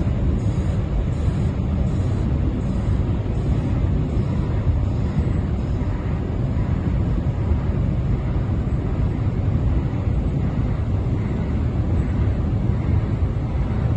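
Steady low rumble of a departing ferry's engines, mixed with wind buffeting the microphone. Faint high pips repeat about every two-thirds of a second in the first few seconds.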